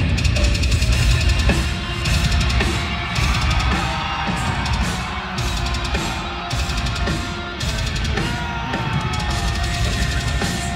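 A heavy metal band playing live in an arena, recorded from among the audience, with the drum kit's bass drum and snare driving the beat.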